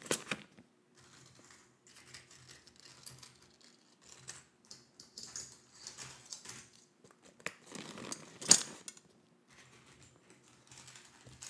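Clear plastic zip-top bag handled close to a microphone: the zip seal pulled open and the plastic crinkling, with scattered sharp clicks, the loudest about eight and a half seconds in.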